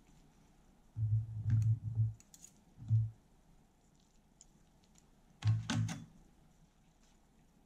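Dull thuds with light clicks, like things being handled and set down on a table: a cluster of knocks about a second in, a single thud near three seconds, and another short cluster a little past five seconds.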